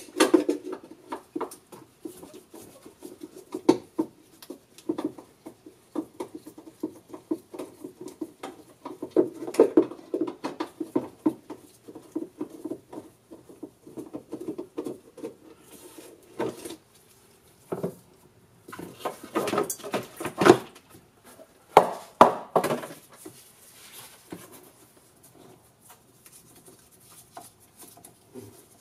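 Screwdriver backing screws out of a sheet-metal cover over a golf cart's starter solenoid, then the cover being lifted off: a long run of irregular small clicks, scrapes and metallic clatter, loudest about two-thirds of the way through.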